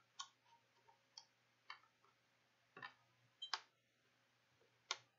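Near silence broken by about ten faint, short clicks and taps at irregular intervals, the strongest about three and a half and five seconds in.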